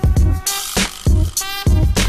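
Soundtrack music: an electronic hip-hop beat with heavy bass-drum hits and sustained synth tones.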